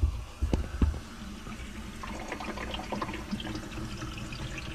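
Water hissing and trickling as it fills the filter housings of a six-stage under-sink reverse osmosis system, the first stages filling after the supply valve is opened. A few sharp knocks come in the first second.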